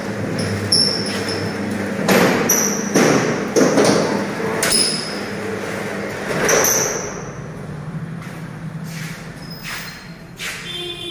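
Motorised steel rolling shutter running: the centre-mounted electric motor hums while the corrugated steel slats rattle and clank irregularly, loudest in the middle, then the noise dies away toward the end.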